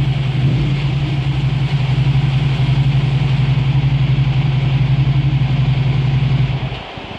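Suzuki SV650's freshly rebuilt 645 cc V-twin engine running steadily on a dyno, with an even pulsing note, then falling away near the end.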